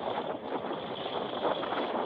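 A-10 Thunderbolt II's twin General Electric TF34 turbofan engines running: a steady jet rush with a high whine that grows louder in the second half, with wind on the microphone.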